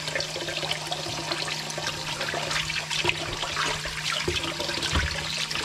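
Kitchen tap running into a plastic bowl full of water in the sink, with splashing and sloshing as pieces of raw turkey are rinsed by hand under the stream.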